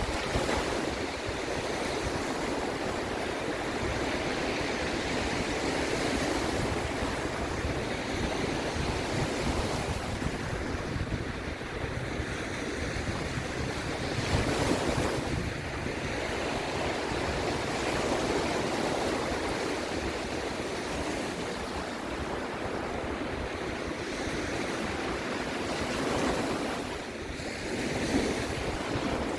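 Sea waves washing in and breaking, the wash swelling and falling every few seconds, with some wind on the microphone.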